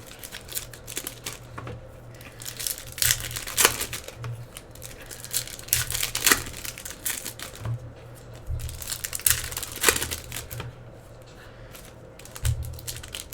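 Foil wrapper of a 2016-17 Panini Hoops basketball hobby pack crinkling and tearing as it is opened and handled, in irregular sharp crackles.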